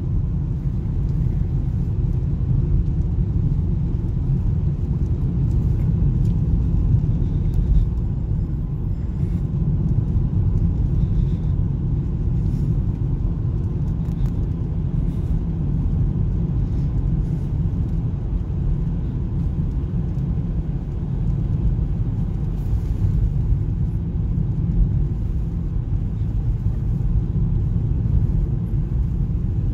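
Steady low rumble of a car's engine and tyres, heard from inside the cabin while cruising along a country road.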